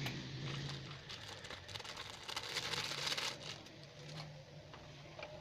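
Plastic and paper packaging of Pop Mie instant noodle cups crinkling and rustling as it is handled and torn open, in irregular crackles that are busiest about two to three seconds in, over a faint low steady hum.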